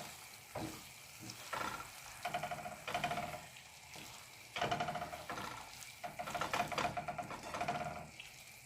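A utensil stirring pasta in a pan of tomato and garlic sauce, scraping the pan in repeated strokes about once a second, over a faint sizzle.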